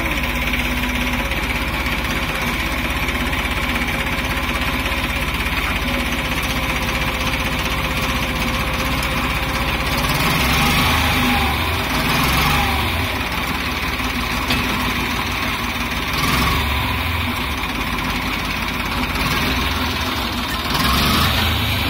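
Tractor's diesel engine running steadily while it powers a rear-mounted hydraulic loader, the engine growing louder several times from about ten seconds in as the bucket is lifted and tipped.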